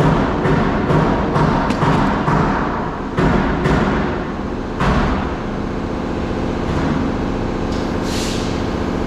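A quick run of sharp knocks and thuds, about two a second, that dies away about five seconds in, followed by a steady sound with held tones.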